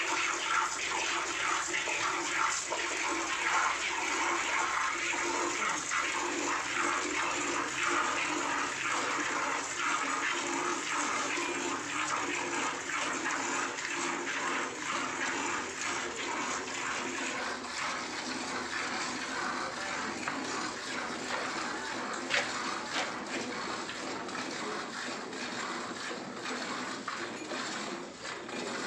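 Hand-milking a desi cow: streams of milk squirting in quick succession into a steel bucket, a continuous frothy hiss made of many small rapid spurts.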